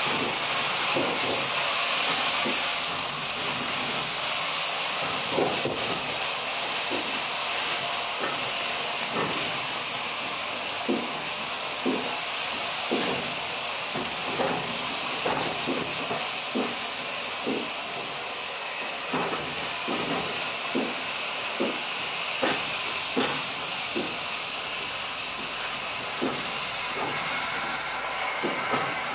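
Kilmersdon, a Peckett 0-4-0 saddle-tank steam locomotive, hissing steadily as its train moves off, loudest in the first few seconds and then easing. Short knocks come roughly every half to one second from the moving train.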